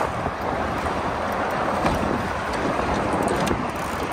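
Steady wind buffeting the microphone on an open boat, over the wash of choppy water.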